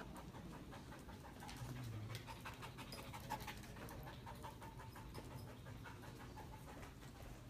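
Young police narcotics-detection dog panting quickly and rhythmically, faint.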